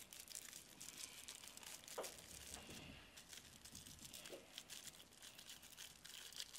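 Faint crinkling and rustling of a rolling paper and cannabis being handled by hand as a joint is rolled, in quick small crackles.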